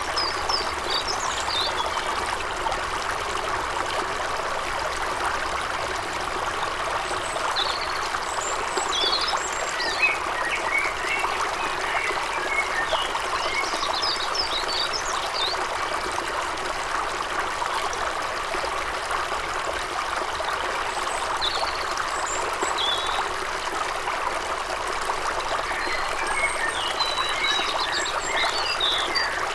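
A forest brook babbling steadily, with small birds chirping in short quick bursts several times over it.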